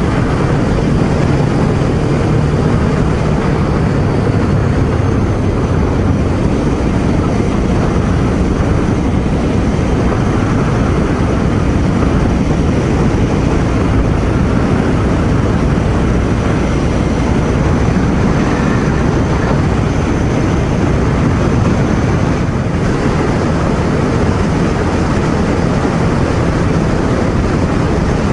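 Ducati Scrambler Sixty2 motorcycle cruising at a steady speed during its break-in, its engine running under a constant rush of wind noise on the rider's microphone.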